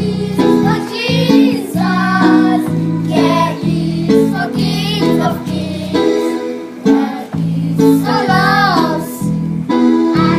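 Music: a song with a singing voice over a plucked-string and bass accompaniment.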